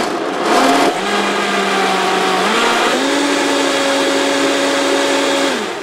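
Countertop blender blending a banana and frozen-blueberry mix. It starts with a couple of short bursts, then runs steadily. Its motor pitch steps up twice partway through, and it winds down near the end.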